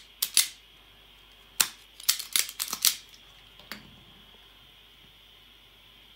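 Hand wire stripper snipping and clicking as power-supply cables are cut to length: two sharp snips at the start, then a quick run of about six clicks between one and a half and three seconds in, and one faint knock near four seconds.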